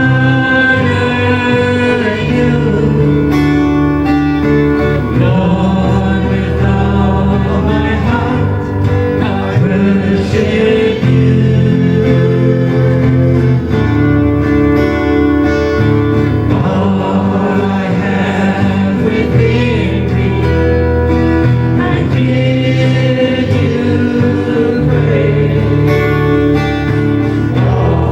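Worship music: a band playing sustained chords, with singing.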